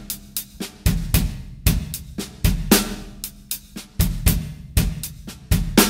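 Drum kit playing a half-time shuffle groove slowly. The hi-hat keeps a steady shuffle pattern over bass drum kicks, with light ghost strokes on the snare and a heavier snare backbeat about every three seconds.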